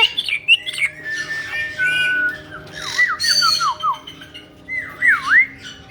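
Pet caique parrots whistling and chirping: a string of short whistles gliding down in pitch about three seconds in, and a swooping whistle that dips and rises again about five seconds in.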